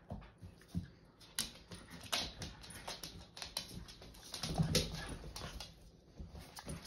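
Siberian husky puppy and adult husky play-wrestling on a hard floor: scattered clicks and scuffles of paws and claws, with a short low dog vocalization about four and a half seconds in.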